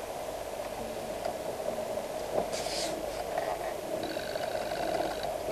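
A car's engine running at low revs, heard from inside the cabin, as the car creeps slowly in reverse while being steered into a parking space. A short hiss comes about two and a half seconds in, and a thin steady high tone sounds again for about a second near the end.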